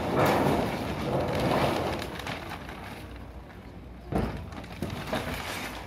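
Reflective foil roof underlay sheet rustling and crackling as it is pulled up and bundled, loudest in the first two seconds. About four seconds in there is a single thump, with a few lighter knocks after it, from steps on the corrugated metal roof sheeting.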